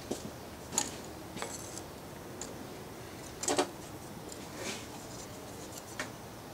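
Scattered light clicks and clinks of metal tools being handled on a stone bench top as a sharpening jig holding a chisel is set down, the loudest clink about three and a half seconds in.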